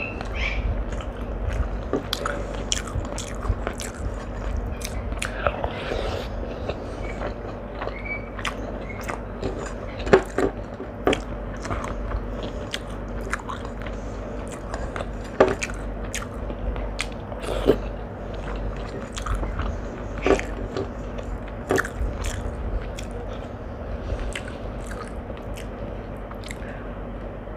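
A person eating: biting and chewing food with wet mouth sounds, and sharper crunches or clicks standing out several times, the loudest about ten seconds in.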